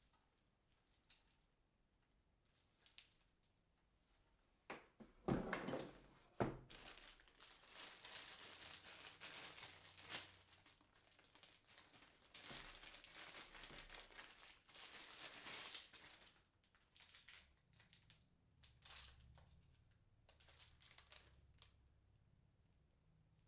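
Plastic packaging crinkling and rustling as it is handled, with two sharp knocks about five to six seconds in and scattered short rustles near the end.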